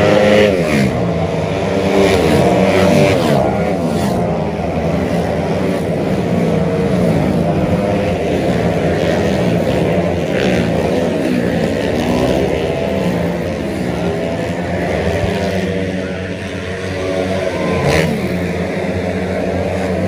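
Racing 130cc automatic scooters running hard on a street circuit, several engines at once, their pitch rising and falling as they accelerate, brake for the corner and speed past. About the first second, one engine's pitch drops sharply as it goes by.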